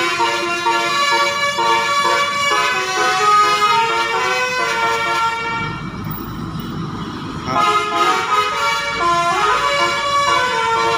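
Bus 'telolet' musical horns sounding a tune of short stepping notes. They break off for about two seconds in the middle, leaving only a rumble, then play again.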